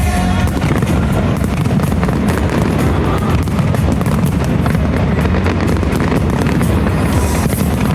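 Fireworks going off in quick succession, many bangs close together, with loud music playing throughout.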